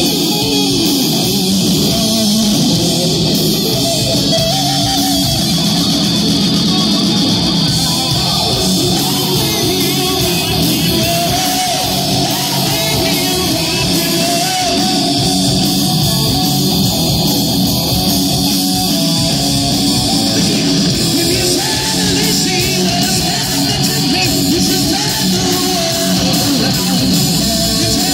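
Live rock band playing loud, distorted electric guitars with a singer, heard through the hall's echo.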